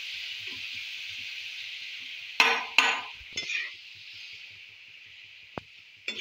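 Boiled val (lablab bean) pods sizzling in oil and spices on a hot tava, the sizzle slowly dying down. About two seconds in, a steel spatula scrapes and clinks on the tava three times while stirring, then a single sharp click near the end.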